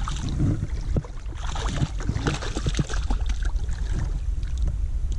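Water splashing and sloshing in a shallow, rocky stream as a hooked fish thrashes at the surface and a person wades, in short irregular splashes. Wind buffets the microphone underneath.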